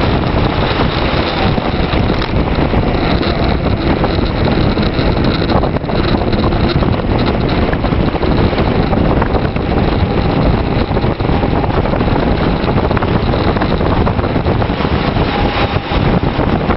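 Steady wind rush buffeting the microphone of a camera riding on a bicycle during a fast road descent.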